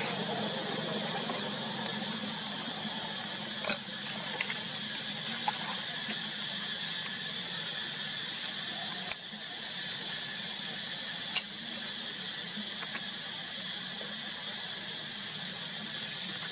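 A baby macaque giving a few short, faint squeaks scattered through, the clearest about four and eleven seconds in, over a steady background hiss with a constant high whine.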